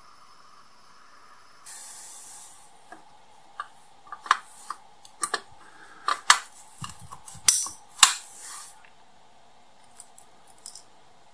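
Sharp clicks and knocks of small die-cast metal and plastic model car parts being handled and fitted, bunched in the middle with several louder ones, after a brief hiss near the start.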